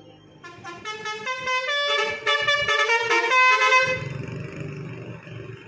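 A tour bus's 'telolet basuri' musical horn plays a quick tune of stepped notes for about three and a half seconds. After it stops, about four seconds in, the bus's engine keeps running underneath.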